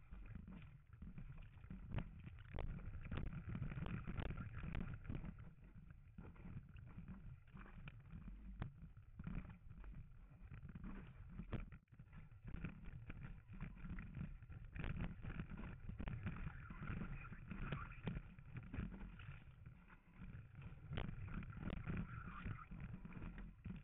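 Muffled rush of water and wind on a waterproof camera housing riding on a moving kiteboard, choppy, with many small splashes and knocks.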